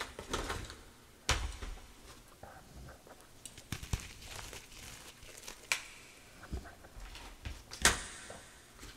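Hands squeezing and crumbling lumps of wet gym chalk: irregular soft crunches and squishes, with a few sharper crackles spread through.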